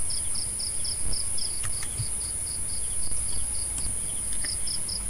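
Insect chirping, about four short high chirps a second, over a steady high-pitched whine and a low hum.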